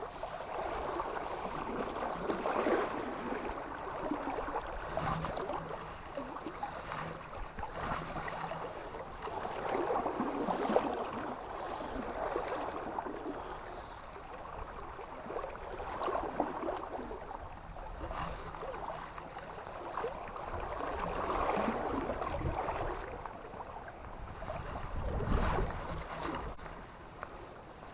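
Moving river water, a steady rushing and splashing that swells and eases every few seconds.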